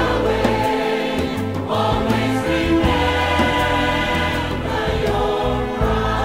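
Background music: a choir singing held chords over instrumental accompaniment.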